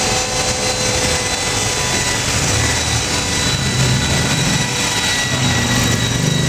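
Electric RC model helicopter lifting off and flying, with a steady high whine from its motor and gears over the whir of the rotor blades.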